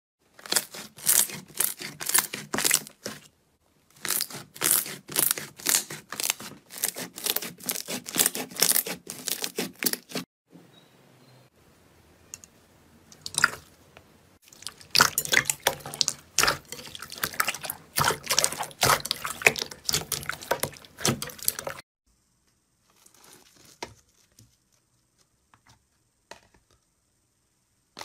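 Slime being squeezed and pressed by hand: rapid wet clicks and crackling pops in two long runs, with a quieter stretch between them and only scattered faint clicks near the end.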